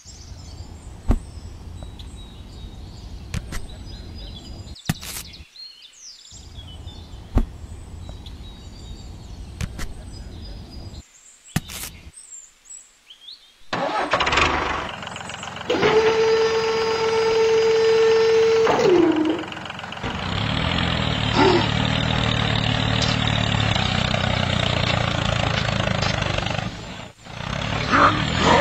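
Small clicks and taps of plastic parts as the cultivator attachment is fitted to a toy tractor. About halfway through, a tractor engine sound starts up, with a steady whine for about three seconds, then runs steadily with a brief dropout near the end.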